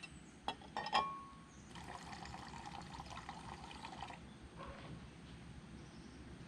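Two or three sharp clinks, one ringing briefly, then liquid pouring for about two seconds.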